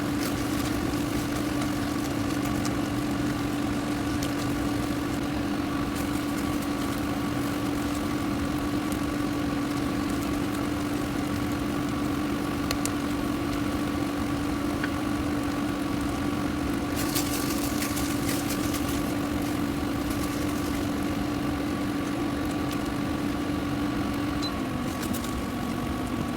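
A steady machine hum with a constant low drone and a fainter higher tone, its pitch dropping slightly near the end.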